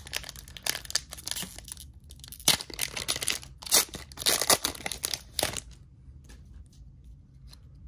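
A foil trading-card booster pack wrapper being torn open by hand, crinkling and crackling in a run of sharp rustles that stops about five and a half seconds in. After that come only a few faint ticks as the cards are handled.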